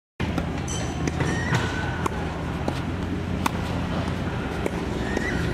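Tennis ball being struck by a racket and bouncing on a hard court: a scatter of sharp pops, the loudest about three and a half seconds in, over a steady low rumble, with a couple of short high squeaks.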